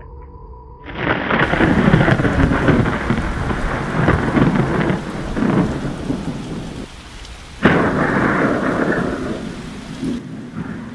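Thunderstorm: rolling thunder over heavy rain breaks in suddenly about a second in. A second, sharp thunderclap cracks about seven and a half seconds in, then rumbles away as the rain goes on.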